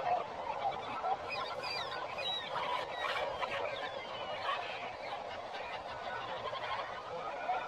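A dense chorus of birds calling and chattering at once, many short overlapping calls, with high thin whistled notes standing out between about one and four seconds in.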